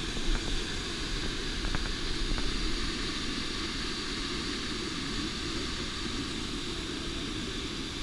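Steady rush of a large waterfall heard close to where it falls, with its spray reaching the microphone.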